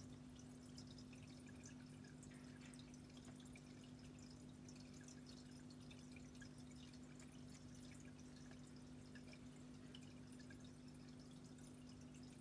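Near silence: room tone with a steady low hum and faint scattered ticks.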